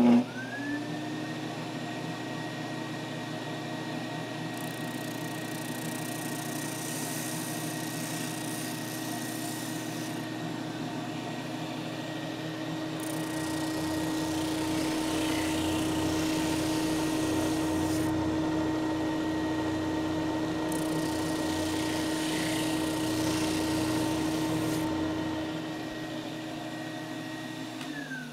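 Flatmaster drum sander switched on with a click, its motor spinning up to a steady whine. A thin fretwork piece is fed across the 180-grit drum in three gentle passes, each adding a sanding hiss. Near the end the motor is switched off and winds down.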